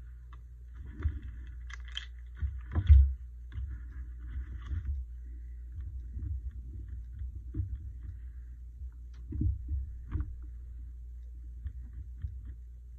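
Rubber stamps and a stamp block being handled and pressed down on a craft table: scattered light knocks and rustles, the loudest knock about three seconds in, over a steady low hum.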